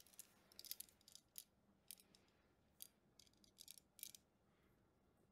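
Faint clicks and scrapes of needle-nose vise grips and a plastic-insulated ring crimp connector being worked onto a wire, in short irregular clusters that stop about four seconds in.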